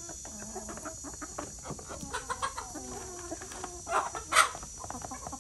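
A flock of chickens clucking while they feed, with many short taps as they peck at the feed dish. Two louder calls stand out about four seconds in.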